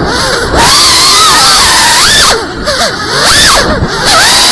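An FPV quadcopter's electric motors whining, their pitch swooping sharply up and down several times as the throttle is punched and cut through rolls and flips.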